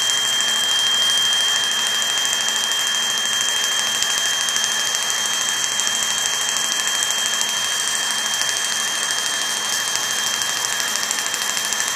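Surgical smoke evacuator running during CO2 laser resurfacing: a steady rushing hiss with a constant high tone over it.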